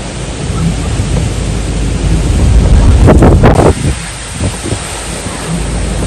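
Typhoon wind blowing hard across the microphone, with a louder gust about three seconds in.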